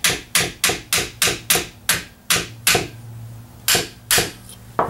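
A pin punch tapped repeatedly to drive a cross pin out of a Ruger 10/22 receiver: sharp metal strikes about three a second, then a short pause and three more spaced taps near the end.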